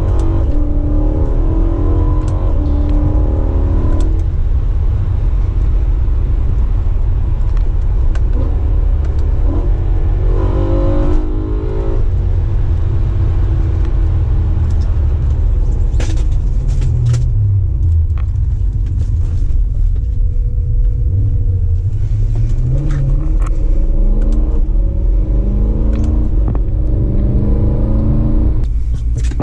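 BMW E92 M3's naturally aspirated V8 on its stock exhaust, heard from inside the cabin while driving. Over a steady deep drone of engine and road noise, the engine note climbs in pitch several times as the car accelerates.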